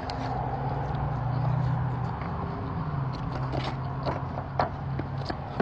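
A steady low mechanical hum, with scattered light clicks and taps close by.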